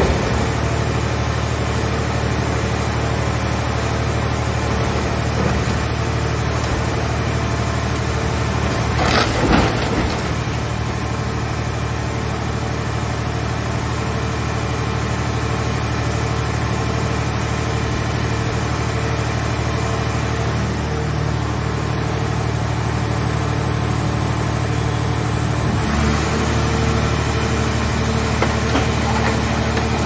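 Car scrap baler running with a steady hydraulic hum and a high whine, with a short crunch of sheet metal about nine seconds in as the car body is pressed. Near the end the hum changes pitch and the whine steps up as the press takes on another stroke.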